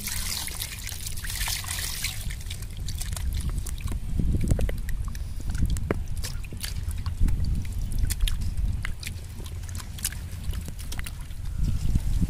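Water sloshing and trickling, with small splashes and drips, as raw chicken pieces are rubbed and washed by hand in a metal pot of water, over a steady low rumble.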